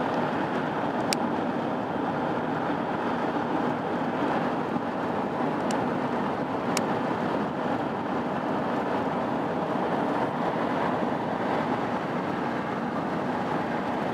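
Steady road and wind noise of a vehicle travelling at highway speed, heard from inside it, with three short clicks along the way.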